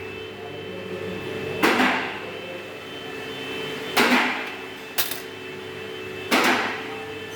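Four sharp knocks, each with a short ringing tail, spaced about one to two and a half seconds apart, over a steady hum.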